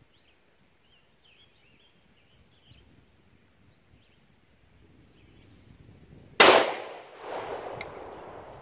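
A single 9mm pistol shot from a Smith & Wesson SD9VE, loud and sharp about six and a half seconds in. Echo and a metallic clang from a struck steel target follow it.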